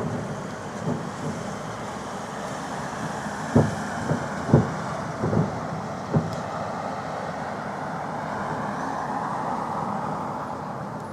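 Fireworks salute shells bursting overhead: about seven or eight sharp booms, most in a quick cluster in the middle, over a steady background of city noise.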